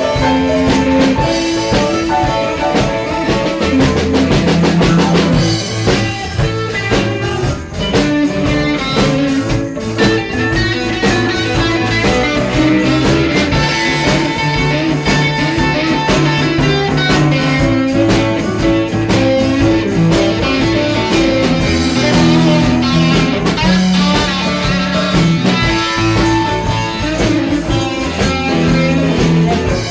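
Live band playing an instrumental blues-rock passage: guitar lines over bass and a drum kit.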